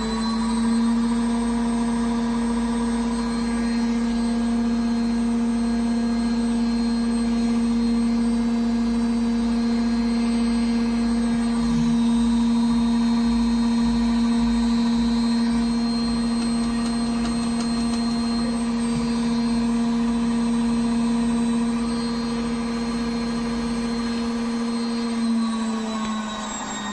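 Electrolux EW1077F washing machine drum spinning at high speed, its motor giving a steady high whine. The pitch drops slightly near the end as the drum starts to slow.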